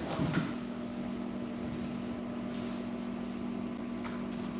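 Steady hum of a running household appliance: a constant low tone over a faint whir, with a couple of faint ticks.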